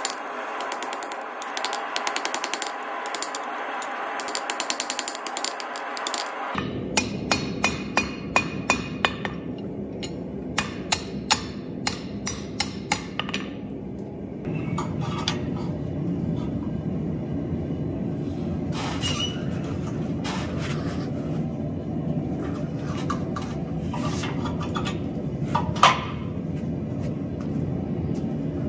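Hand hammer striking a hot steel bar on an anvil. First comes a fast run of light blows with the anvil ringing. After a sudden change about six seconds in, there are spaced, sharper strikes. From about halfway on there is a steady low rush with a few scattered metal clinks.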